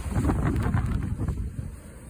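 Wind buffeting the microphone, an irregular low rumble that eases off near the end.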